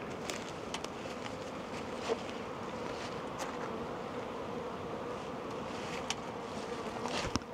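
Swarm of honey bees buzzing steadily around an open hive box, a wavering hum that holds through, with a few faint clicks of handling.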